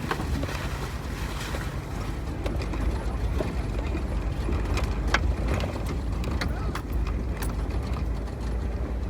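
Jeep TJ driving a rough dirt trail: a steady low rumble from the engine and tyres, with scattered clicks, knocks and rattles from the body and loose gear.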